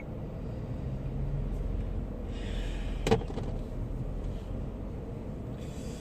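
Car running, heard from inside the cabin: a steady low rumble, with brief hissy rustles and a single sharp click about three seconds in.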